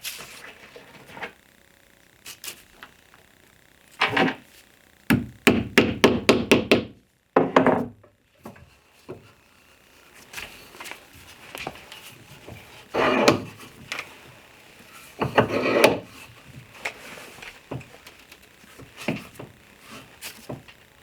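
Workshop handling sounds as a steel T-nut is pressed into a wooden jig part in a wooden leg vise: wooden clunks and knocks, a quick run of about ten sharp taps about five seconds in, and two longer scraping, grinding sounds later on.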